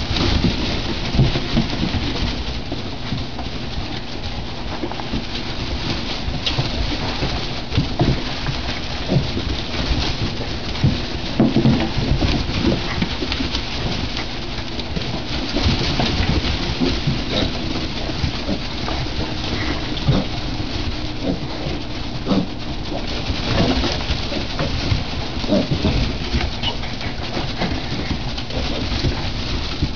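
Piglets grunting, many short low grunts scattered throughout, over a constant rustle and patter of their trotters scuffling through wood-shaving bedding.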